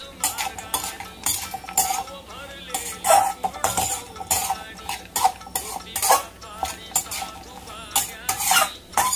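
A metal spatula scraping and clanking against a steel kadhai in quick, irregular strokes, stirring chopped cashews, almonds and raisins as they roast in ghee. The strikes give off short metallic rings.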